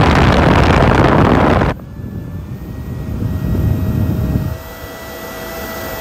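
Air blowing out of a 12 V DC air conditioner's supply duct rushing across the microphone, loud and steady, cutting off suddenly a little under two seconds in. Quieter rushing air then swells and drops away about four and a half seconds in, over a faint steady whine.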